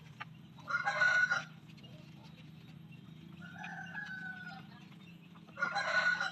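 Roosters crowing: two loud, harsh crows about five seconds apart, with a fainter call between them, over a steady low hum.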